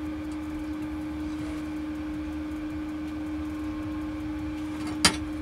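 A steady mechanical hum with one constant low tone. About five seconds in, a single sharp knock of metal as the cut sheet-steel arch piece is handled on the steel bench.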